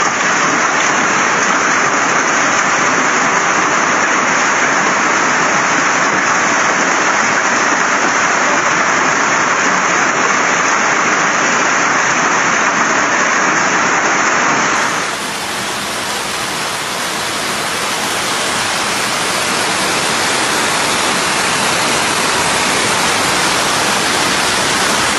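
Heavy rain and hail coming down hard, a dense, even hiss with no separate strikes standing out. About fifteen seconds in the sound changes abruptly, turning a little quieter and fuller before building back up.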